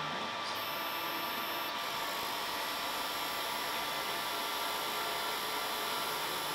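Cron Craft desktop CNC router's spindle turning a fishtail bit at 1000 RPM as it cuts into acrylic sheet, running steadily with a few faint thin high tones. The spindle speed is far too low for the material the bit has to remove, so the cut fails.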